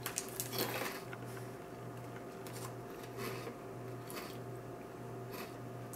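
Faint crunching of spicy pork rinds (chicharrones) being chewed with the mouth closed, over a low steady room hum.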